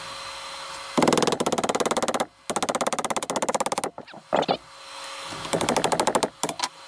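A ratchet clicking rapidly, about fifteen clicks a second, in three runs of about a second each, with a few short squeaks between the second and third runs.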